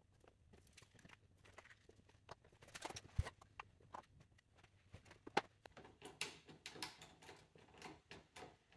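Faint, irregular clicks and knocks of plastic fan-shroud parts being handled and fitted around the radiator and engine fan, with a duller knock about three seconds in.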